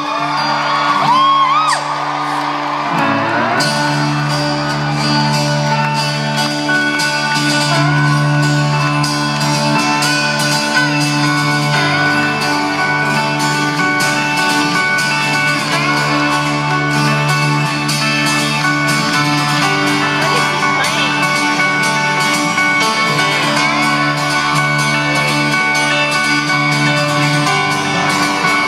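Live folk-rock band playing in an arena hall, heard from the audience. The full band comes in loud about three seconds in, with the crowd's shouts and whoops over the music.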